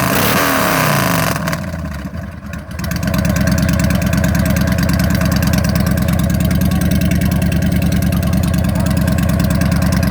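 An engine running, its pitch falling in the first second and dipping briefly about two seconds in, then settling into a steady run.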